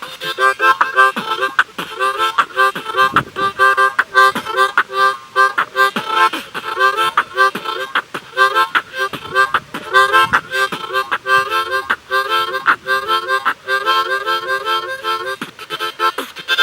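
Harmonica beatboxing: a harmonica played in fast rhythmic chords while the player adds percussive breath and mouth beats through it, a steady groove of alternating chords and sharp clicks.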